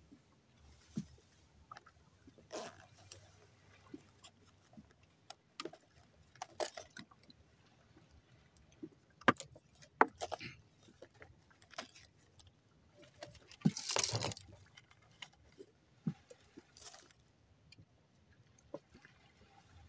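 Scattered light clicks and knocks from handling a fishing hand line in a small wooden boat, with a brief rustle about fourteen seconds in.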